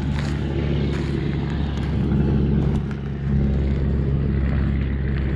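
Steady, low engine drone, dipping briefly about three seconds in.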